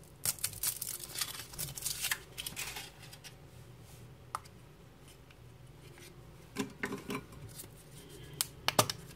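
Foil wrapper of a Kinder Surprise egg crinkling as it is peeled off by hand for the first few seconds. Then scattered cracks and clicks as the chocolate shell is broken and the plastic toy capsule is handled and snapped open, with a cluster of sharp clicks near the end.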